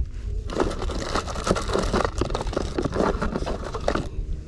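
A hand rummaging through a plastic tackle box, its contents clicking, rattling and rustling against each other. This starts about half a second in and stops shortly before the end, over a steady low rumble.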